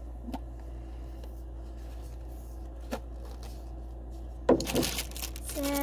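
Handling noise from items being taken out of a box, over a steady low hum. A couple of small clicks come first, then a short burst of rustling and clacking starts about three-quarters of the way through.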